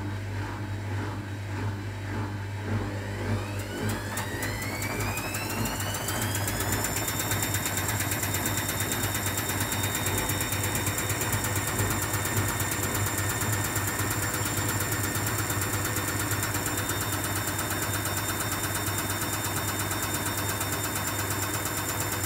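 Hotpoint WMA 30 front-loading washing machine spinning. It pulses at first, then about three seconds in the motor whine rises as the drum speeds up, and from about seven seconds it holds a steady high-speed spin whine.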